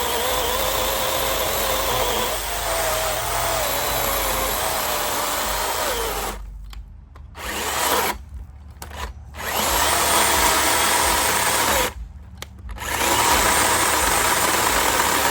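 DeWalt FlexVolt cordless chainsaw cutting through a dry oak branch, its motor whine wavering in pitch under load. In the second half it cuts out briefly three times and spins back up each time.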